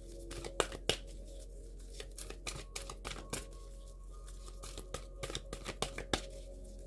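Tarot cards being shuffled by hand: a run of irregular soft flicks and clicks of the cards against each other, the sharpest ones about half a second to a second in.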